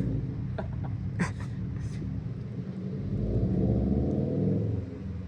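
Car engine rumbling as the car pulls away, swelling in pitch and loudness about three seconds in, then fading.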